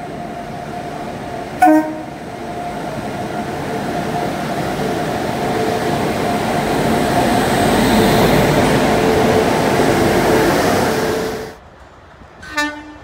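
A WAP7 electric locomotive hauling a train gives a short horn blast, then runs past close by: a steady whine over the rumble of the train, growing louder as it nears, then cut off suddenly. Another short horn toot sounds near the end.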